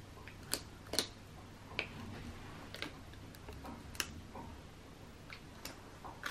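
Light, irregular plastic clicks and handling noise as small HIMI gouache jelly-cup pots are handled and their plastic lids pried off, about half a dozen sharp clicks spread over several seconds.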